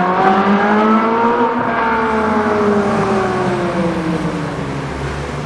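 A supercar's engine pulling away: its note climbs for about a second and a half, then falls slowly and fades as the car drives off. Another engine runs steadily underneath for the first two seconds.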